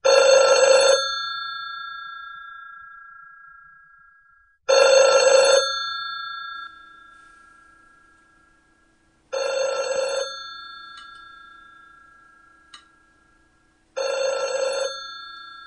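Black rotary-dial desk telephone's bell ringing four times, about four and a half seconds apart. Each ring lasts about a second and leaves a long fading ring-out. The last two rings are quieter than the first two.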